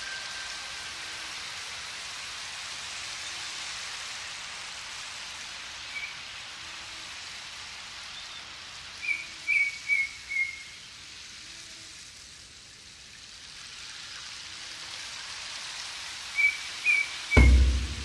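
Steady rain hiss with a few short groups of bird chirps. Near the end a shamanic frame drum is struck once with a deep boom that rings on.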